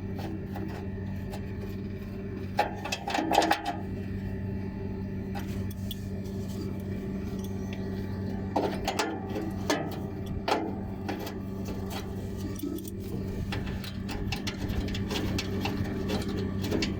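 Small electric fan motor from a water cooler running with a steady low hum, with scattered clicks and knocks of metal parts being handled, a cluster about three seconds in and more later on.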